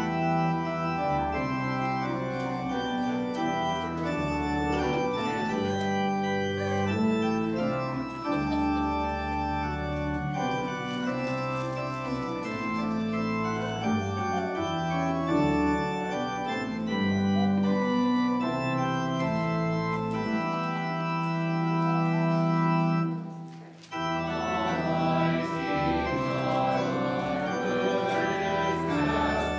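Church organ playing a hymn in sustained, slowly changing chords, with a brief break about three-quarters of the way through.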